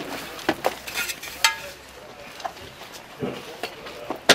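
Scattered knocks and clinks of bags, boxes and metal gear being handled and loaded into the back of a van, with one sharp knock near the end.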